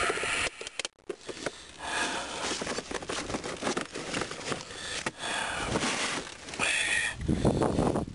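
Clear plastic tackle boxes being handled and slid back into a soft tackle bag: irregular clicks, clatter and scraping of plastic. The sound gets louder and lower near the end.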